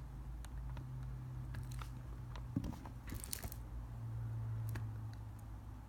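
Scattered soft clicks and light handling noises, with a short rustle about three seconds in, over a low steady hum; computer mouse clicking while a list is randomized.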